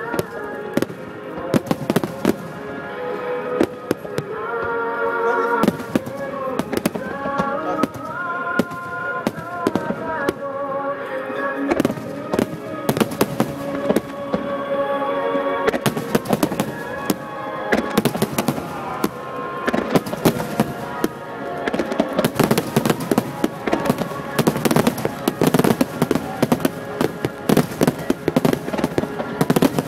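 Fireworks exploring in rapid succession, a dense stream of bangs and crackles that thickens in the second half, over music playing with the display.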